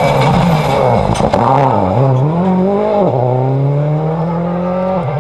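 Rally car engine at racing revs as the car passes. The revs dip and pick up again several times over the first three seconds, then climb steadily as the car pulls away.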